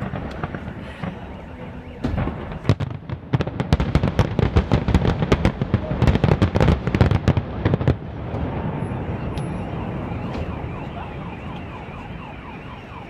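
Fireworks display: a dense run of rapid bangs and crackling shell bursts from about two seconds in to about eight seconds in, then a steady wash of noise as they die away. A car alarm wavers up and down near the end.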